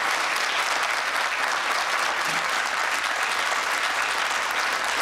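Studio audience applauding, a steady dense patter of many hands clapping throughout.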